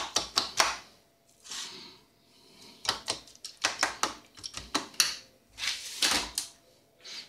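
Quick runs of clicks and scrapes from dog food in a bowl, in short clusters with brief pauses between.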